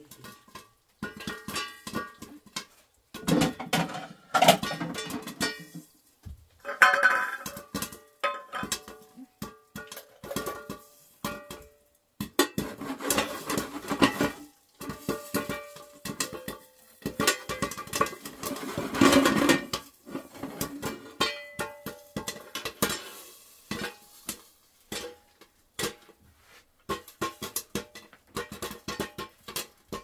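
Metal spoon clinking and scraping against a large metal pan, with many short knocks, some leaving a brief ringing tone.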